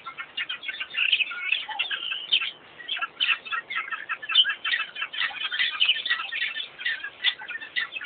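A dense chorus of many small birds chirping and twittering, short calls overlapping without a break.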